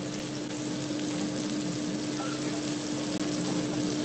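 Meat patties frying in oil in a nonstick pan, a steady sizzle, over a constant low hum.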